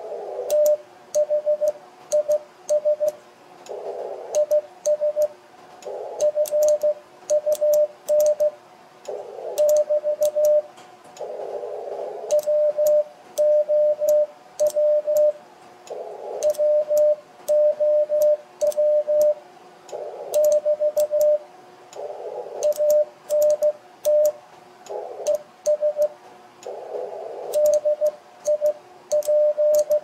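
Morse code (CW) tone from a ham radio transceiver, a single steady pitch keyed in dits and dahs and sending a contact exchange ('thanks for the call, this is fun'). Sharp clicks from the Morse key come with the keying. Short bursts of band noise fill the gaps between words.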